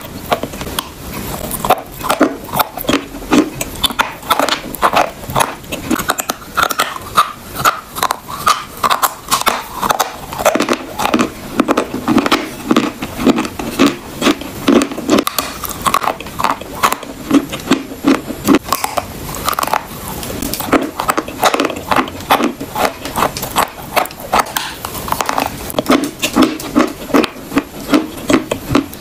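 Close-miked crunching and chewing of pieces of chalk, a rapid run of sharp crunches that goes on throughout with repeated bites.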